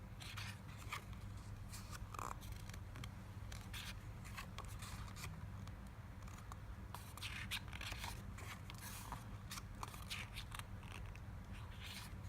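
Paper pages of an album photobook being turned and handled: irregular crisp rustles and soft clicks over a faint steady hum.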